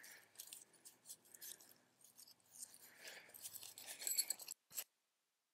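Faint clinks and rustling of metal tent stakes being handled, a little louder about four seconds in; the sound cuts off suddenly near the end.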